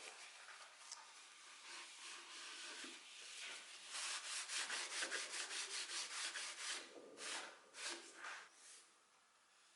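Quick back-and-forth hand rubbing on a wooden surface, like hand sanding, at about five strokes a second. It slows to a few separate strokes and stops shortly before the end.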